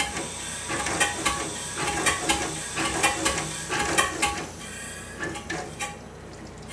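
Stanley SV two-cylinder steam car engine running on compressed air: a rhythmic beat of air exhaust puffs and metallic knocks that slows and dies away about five to six seconds in. A scraping noise runs with it, which the owner doesn't like.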